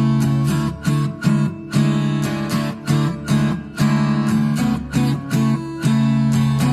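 Acoustic guitar strummed in a steady rhythm, playing the instrumental intro of a pop song before the vocals enter.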